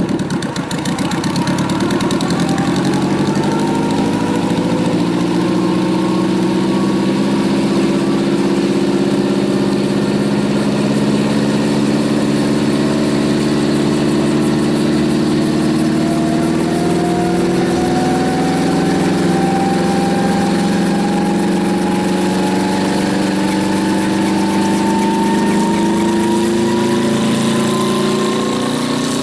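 Engine of a homemade helicopter running steadily, its pitch climbing slowly over the second half, as its components are tested under load.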